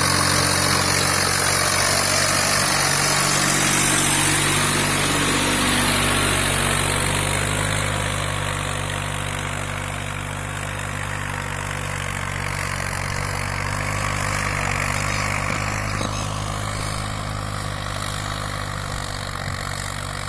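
Swaraj 923 tractor's diesel engine running steadily under load while pulling a tiller through stubble, loud at first and then fading after about six seconds as the tractor moves away.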